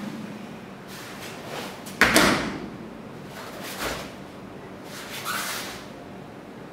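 Karate uniform snapping and swishing, with bare feet on foam mats, as a karateka performs kata techniques. One sharp, loud snap comes about two seconds in, and fainter swishes follow near four and five seconds.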